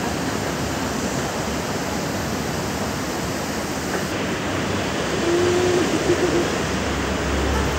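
Steady rushing noise of a rail station concourse heard from a moving escalator, with faint voices. A brief held tone sounds about five seconds in, and a low rumble builds near the end.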